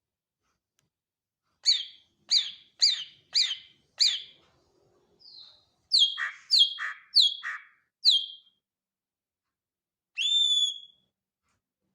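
Greater green leafbird (cucak ijo) singing: a run of five sharp down-slurred notes, then four more with a lower rough part under them, then one longer whistled note that sweeps up and holds near the end.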